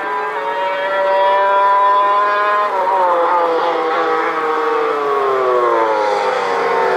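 MotoGP racing motorcycle engine at high revs, its pitch climbing a little and then dropping sharply about three seconds in as it passes, then falling steadily as it runs away.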